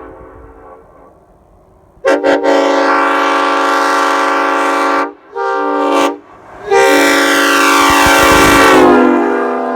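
Nathan Airchime M5 five-chime train horn blown on compressed air. There are two quick toots, a long blast of about two and a half seconds, a short blast, then a final long blast whose chord sags in pitch near its end.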